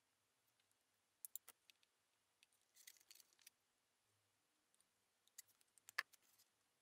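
Faint clicks and taps of hands handling plastic parts and a hot glue gun on a tabletop, in scattered small groups. The sharpest click comes about six seconds in.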